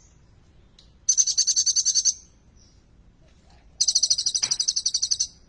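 Kolibri ninja sunbird singing: two bursts of fast, high-pitched trilled song, each about a second long, separated by short pauses.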